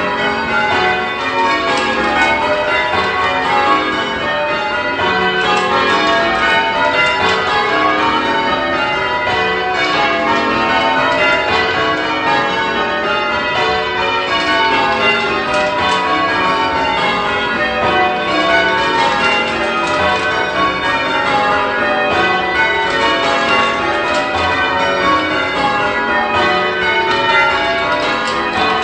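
Church tower bells being rung in changes by a band pulling the ropes, one bell striking after another in a steady, continuous rhythm with the notes overlapping and ringing on.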